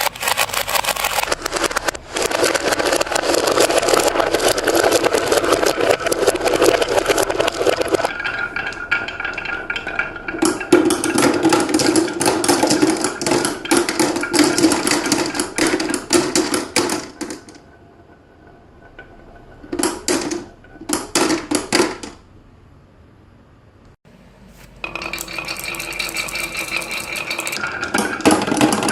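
Marbles clattering and rattling along a toy marble run over the whir of a small toy motor. The noise stops about two-thirds through, comes back in two short bursts, then starts up again near the end.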